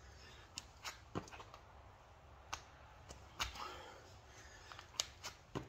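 A man's heavy breathing during a bodyweight burpee workout, with scattered light taps and one thump about three and a half seconds in, from his shoes and body on the exercise mat.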